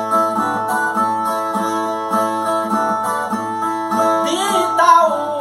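Brazilian viola, the steel-strung guitar of repente singers, playing the instrumental interlude between sung stanzas, with steady strummed and plucked chords. A singing voice comes in near the end.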